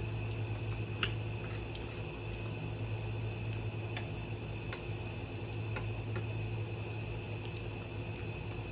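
Close-up eating sounds: chewing and mouth noises with a handful of sharp clicks, the loudest about a second in. Under them runs the steady hum of a window air conditioner.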